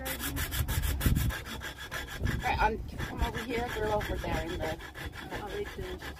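Hacksaw cutting through a metal piano hinge, the blade rasping in repeated back-and-forth strokes.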